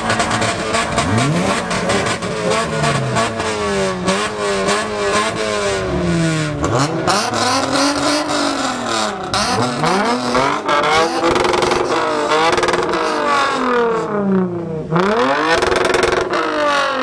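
A car engine is revved over and over, its pitch climbing and falling with each blip of the throttle.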